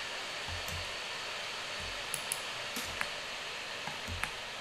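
Steady hiss of the recording's background noise, with a few faint, short clicks of a computer mouse and keyboard as faces are selected in Blender.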